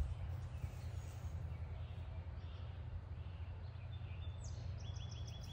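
Steady low outdoor background rumble, with a bird chirping a quick run of short high notes near the end.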